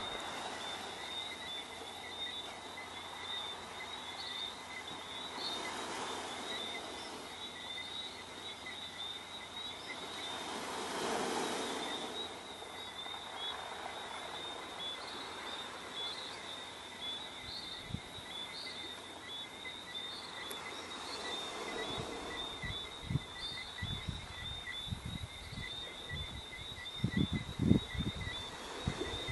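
Dense, steady high-pitched chorus of small calling animals, a fine shimmering trill that runs on throughout. A few soft whooshing swells pass, the strongest about a third of the way in, and low knocks come and go near the end.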